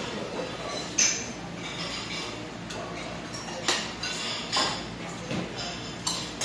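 Metal spoons and chopsticks clinking against stone pots and dishes during a meal, with several sharp clinks spread through over a low steady background.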